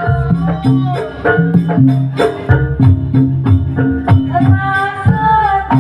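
Live jaranan (kuda lumping) music: a rapid, steady percussion beat over held low pitched tones, with a wavering melodic line coming in about four seconds in.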